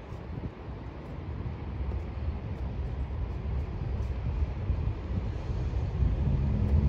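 Wind buffeting the microphone: a low, uneven rumble that slowly grows louder.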